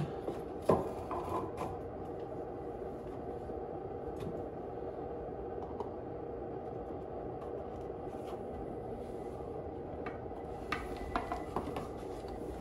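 Steady low room hum, with one sharp click just under a second in and a few light clicks and taps near the end: a plastic container and metal tweezers being handled against a bathtub.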